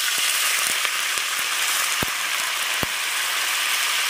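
Coconut oil and ghee sizzling steadily in an uruli as freshly added mint and pandan leaves fry, with two sharp pops about two and three seconds in.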